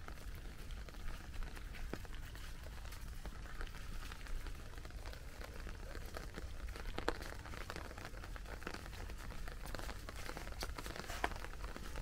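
Footsteps of a person and a husky's paws on wet fallen leaves, small irregular crunches and rustles over a steady patter of rain.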